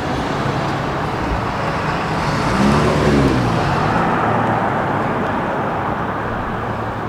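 Street traffic: steady road noise, with a motor vehicle passing close, its engine note rising and then falling, loudest about three seconds in.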